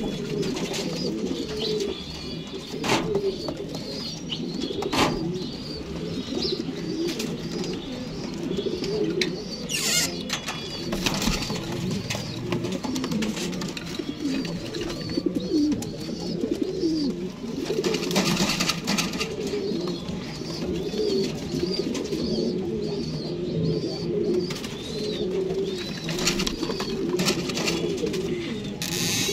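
Red Chinese owl pigeons cooing continuously, low warbling coos overlapping one another, over a repeated thin high chirping. A few sharp clicks stand out.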